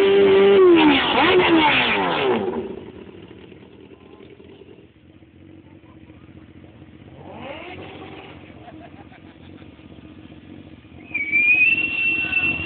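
Suzuki GSX-R inline-four engine revved hard several times through a large open exhaust that is shooting flames, the pitch rising and falling with each blip. After about two and a half seconds it drops back to a low idle, with one short blip in the middle. Near the end a loud, high, steady tone starts.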